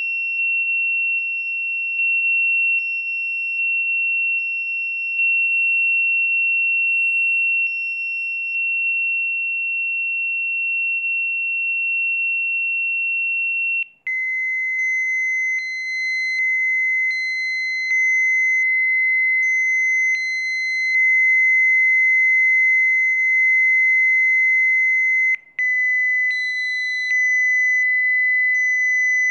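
Steady, high electronic sine tone of a Rife frequency track, dropping suddenly to a lower pitch about halfway through after a brief cut, then stepping slightly lower again near the end.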